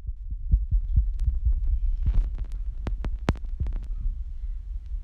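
Oil heating in a pan on the stove: scattered sharp crackles and pops, a few a second at irregular intervals, over a steady low rumble.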